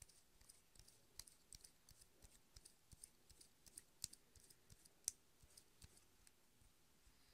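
Twist-up concealer stick being wound up, its mechanism giving faint, irregular clicks several times a second, which stop shortly before the end.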